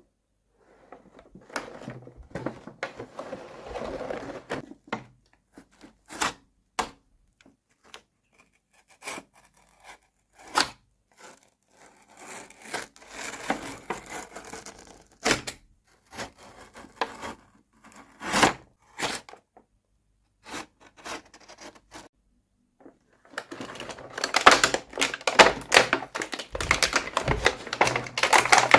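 Plastic packaging crinkling and tearing, with small plastic toy pieces clicking and tapping. The handling turns into dense, louder crinkling near the end.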